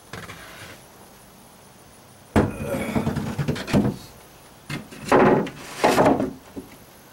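A plywood deck board knocking against a fiberglass boat hull and scraping as it is pushed down and slid into place. There is a sharp knock a little over two seconds in, then scraping, and a second louder bout of scraping and rubbing around five to six seconds in.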